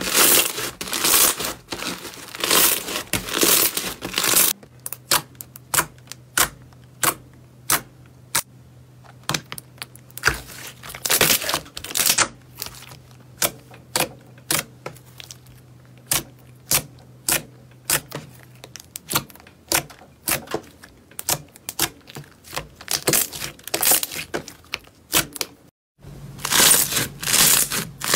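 Hands kneading slime. First, blue slime full of foam beads gives a dense crunchy crackle; about four seconds in, glossy pink slime pressed with the fingers gives a long run of separate sharp clicks; near the end, a lump of fluffy yellow slime brings back a dense crackle.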